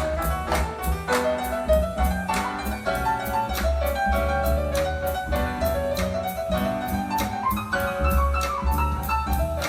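Recorded instrumental music played back through a Yamaha PC2002M power amplifier, with a strong bass line, a melody over it and a steady beat of about three strokes a second.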